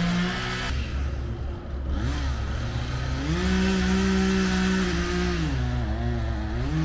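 Gas chainsaw revving up and easing back several times, its pitch dropping about a second in, climbing and holding for a couple of seconds, then falling and rising again, as it cuts into a tree trunk.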